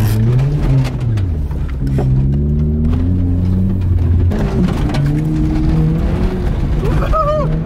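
Beater car's engine pulling hard under throttle, heard from inside the cabin: the engine note climbs and falls in the first second, holds, then drops about four seconds in. A short wavering shout comes near the end.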